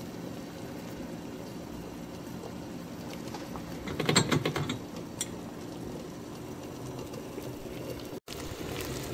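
Pot of water simmering on the stove with a steady low hum beneath it, and a short clatter of clicks and knocks about four seconds in.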